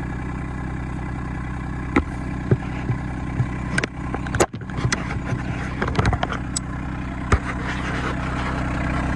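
RK25 compact tractor's diesel engine idling steadily, with a few sharp knocks and clicks in the middle.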